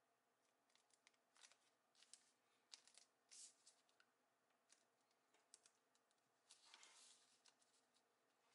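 Faint rustling and creasing of origami paper folded by hand: scattered small crackles, with two longer rustles about three and a half seconds in and near seven seconds.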